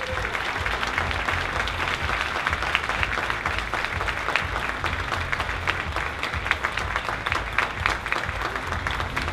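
Large seated audience applauding, a dense, steady clatter of many hands clapping.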